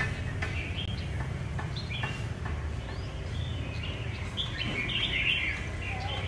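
Caged red-whiskered bulbuls calling and singing in short chirps and sharp notes, with the densest, loudest burst about five seconds in, over a steady low rumble.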